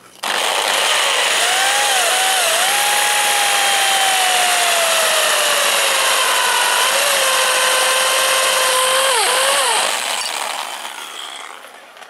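Power drill boring a hole through a small block of wood with a twist bit. The motor runs at a steady loud whine whose pitch sags slowly as the bit cuts, dips a few times near the end, then the drill is let off and winds down.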